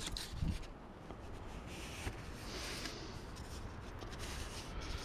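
Faint rubbing and scraping of parts being handled, with a few soft knocks in the first half second and a brief brighter scratch about two to three seconds in.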